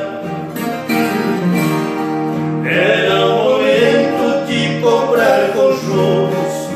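Instrumental passage of a moda de viola on a viola caipira and acoustic guitars, plucked and strummed together without lyrics.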